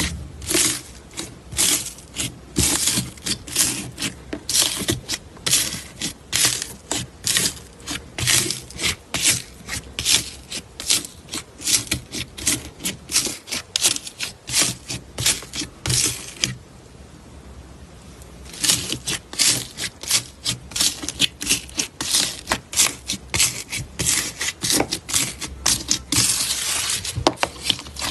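Slime being pressed and worked by hand, making quick trains of sticky crackles, clicks and pops, several a second. They break off for about two seconds a little past the middle.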